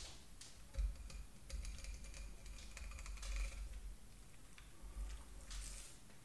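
Filleting knife scraping along the ribs of a Dover sole on a bamboo cutting board, a run of small clicks and ticks as the blade passes over the bones. Right at the end, one loud thump as the fish is turned over onto the board.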